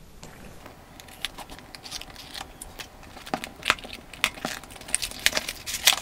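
A cardboard phone box being opened by hand, its outer sleeve slid off the inner tray: scattered light rustles, scrapes and clicks, with several sharper ones in the second half.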